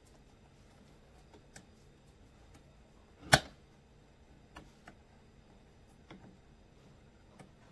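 Faint clicks and taps of hard parts being handled as a Stihl blower's carburetor is worked off its mounting studs, with one sharp, loud click a little over three seconds in.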